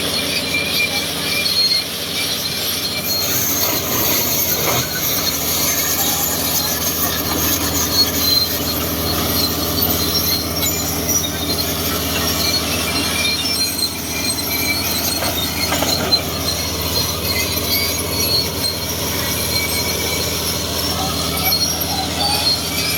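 Old crawler bulldozer working under load, its diesel engine running steadily while the steel tracks squeal and clank.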